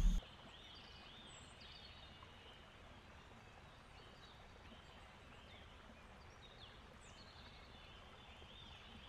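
Loud boat and handling noise cuts off abruptly at the very start, leaving faint outdoor ambience with birds chirping: short arching chirps repeated every second or so.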